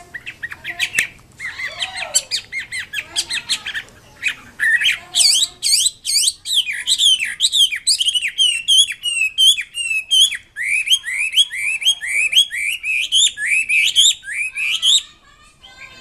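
Chinese hwamei singing a long, varied song of rapid whistled notes, rising and falling slurs mixed with a fast repeated trill near the middle. The song pauses briefly about two-thirds of the way through and stops about a second before the end.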